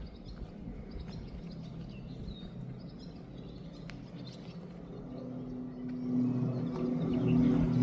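Small birds chirping faintly over a low hum. About five seconds in, a deeper drone with several steady tones swells up and grows much louder.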